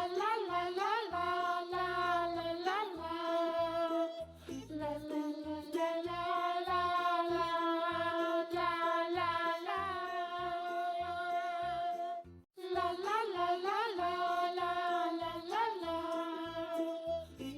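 Background children's song: a sung melody over a steady beat, with a brief break about twelve seconds in.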